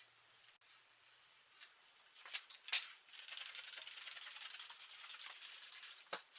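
A few light knocks, then about three seconds of steady cloth rubbing as dust is wiped off a bicycle frame, with one more knock near the end.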